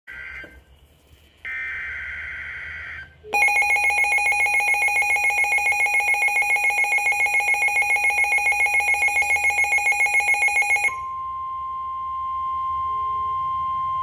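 Midland WR-400 NOAA weather radio sounding an Emergency Alert System Severe Thunderstorm Warning. First come short buzzy data bursts of the alert header. Then the radio's own loud, rapidly pulsing alarm beeps for about seven seconds and gives way to a steady single-pitched warning alarm tone that cuts off at the end.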